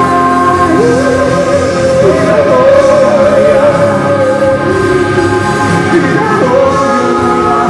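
A band playing a song with a singer: a slow, held vocal melody over bass guitar, drums and keyboard.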